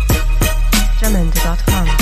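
Background hip hop beat music: repeated drum hits over heavy, constant bass, with gliding synth notes in the middle of the beat.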